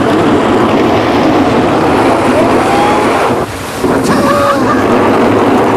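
Water splashing and rushing as a cart's wheels and a towed board plough through shallow floodwater: a loud steady wash with a brief dip about three and a half seconds in. Faint shouts ride over it.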